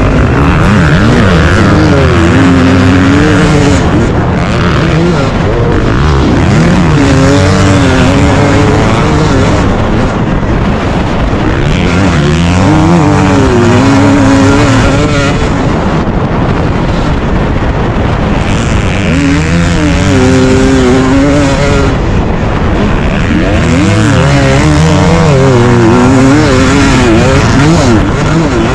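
KTM 250 two-stroke motocross bike's engine running under hard throttle, its note climbing and falling again and again as the rider accelerates, shifts and rolls off around the track.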